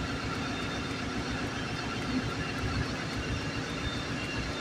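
ZCU-20 diesel-electric locomotive's engine running steadily, heard from inside the cab: an even low drone with a few faint steady whining tones above it.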